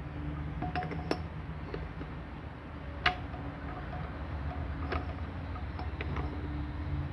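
A few sharp metallic clicks and clinks as hands work on a stationary Wolseley WD8 engine that is not running, the clearest about one and three seconds in, over a steady low background rumble.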